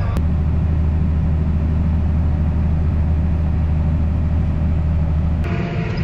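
Steady low drone of a tractor engine heard from inside the cab. The sound changes abruptly just after the start and again about five and a half seconds in.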